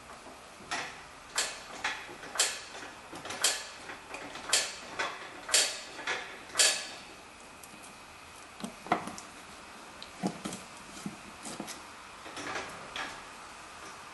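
Sharp metal knocks about once a second, eight or so in a row, then after a pause softer clunks and clicks: hand work on a car's front upper ball joint and control arm.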